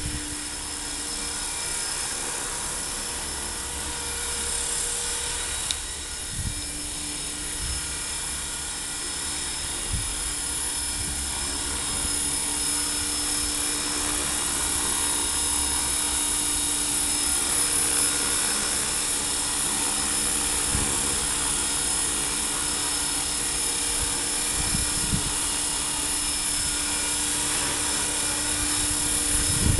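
HK450GT electric radio-controlled helicopter hovering: the steady high whine of its electric motor and gears over the rushing whoosh of the spinning rotor blades, swelling slightly as it moves about.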